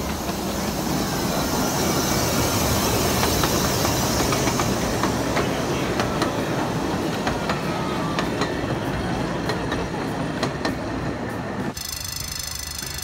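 Little Puffer miniature steam train running, with a steady rumble and, in the second half, an irregular run of sharp clacks from the wheels on the track. Near the end the sound cuts off abruptly to a quieter steady noise.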